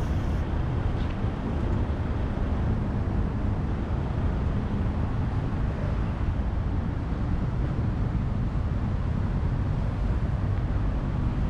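Steady low rumble of wind on the microphone, over a background of city traffic.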